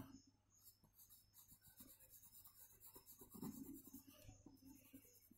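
Faint scratching of a pencil shading on drawing paper, in many short strokes, a little louder about three and a half seconds in.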